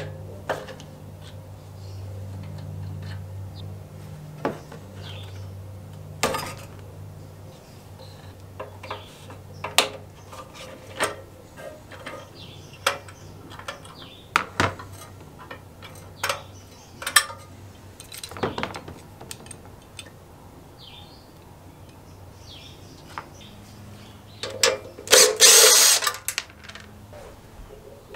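Hand tools and metal parts on a small lawnmower engine: scattered metal clicks and knocks as the carburettor is unscrewed and lifted off. Near the end a cordless drill-driver runs for about two seconds.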